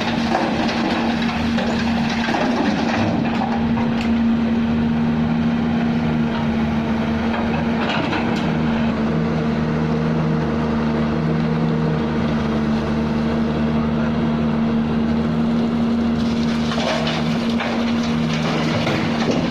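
Heavy diesel machinery engine running steadily at a constant note, with a second lower tone coming and going, and a few brief knocks about 4 and 8 seconds in.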